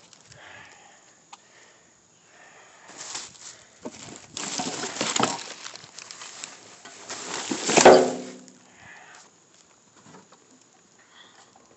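Plastic trash bags rustling and crinkling as a gloved hand pushes through garbage in a dumpster, loudest in the middle. A short creak comes at the loudest moment about eight seconds in.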